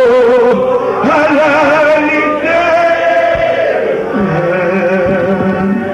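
A man singing a hymn from a hymnbook, holding long notes with a wide vibrato.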